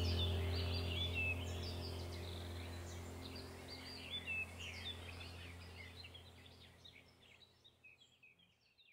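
Birds chirping and twittering over a low steady hum, the whole fading out gradually to near silence toward the end.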